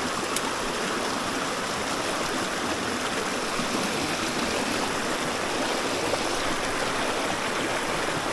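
Small rocky creek running over stones in small cascades: a steady rush of water.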